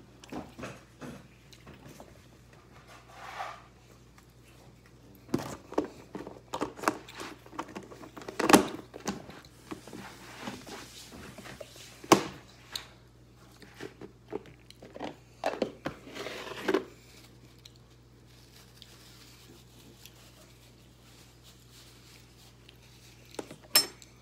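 A person eating: bites and chewing, with scattered short sharp clicks now and then.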